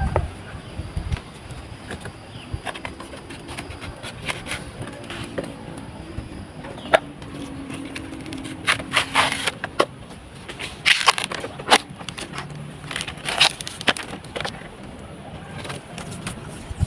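Irregular crackling and scraping on coconut palm material during sap tapping, with a few sharp clicks and short clusters of scraping strokes.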